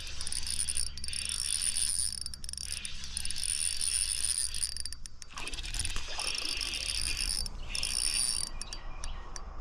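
Ultralight spinning reel being wound in while a hooked fish is played on light line.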